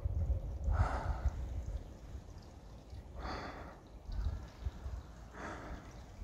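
Heavy breathing of a tired hiker: three loud breaths about two and a half seconds apart, over a low rumble on the microphone.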